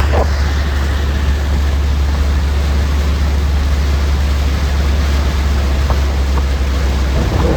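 Car driving along the road: a steady low rumble with an even hiss of road noise.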